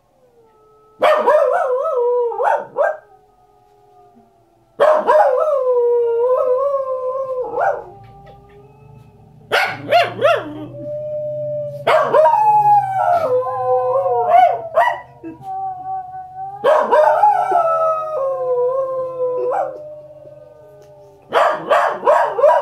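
Pembroke Welsh Corgi howling in about six loud bouts of a few seconds each, its pitch wavering and breaking into yips. Fainter, steadier wolf howls from a television documentary sound between the bouts.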